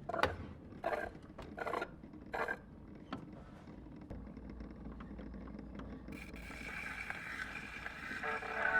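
Gramophone being wound and started: short squeaky scraping strokes of the hand crank about every 0.7 s for the first couple of seconds, then a low running hum. From about six seconds in, the hiss of the needle riding the record's surface comes in, and music starts to rise from the record near the end.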